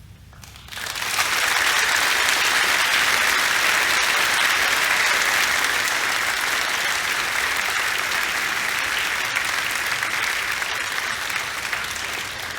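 An audience applauding in a sustained round of clapping that starts about a second in and slowly thins out near the end, following a sung performance.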